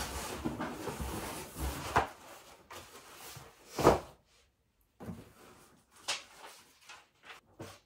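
Cardboard boxes handled: a cardboard shoebox lifted out of a large cardboard shipping box and set down on a stack of shoeboxes, with cardboard rustling and scraping, a sharp knock about two seconds in and the loudest thump about four seconds in, then more scattered knocks and scrapes.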